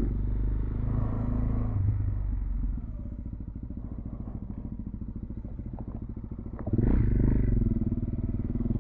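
Motorcycle engine running at low speed, heard from on board: it drops to a quieter, lighter note about three seconds in as the throttle is eased, then picks up again near seven seconds as the bike accelerates.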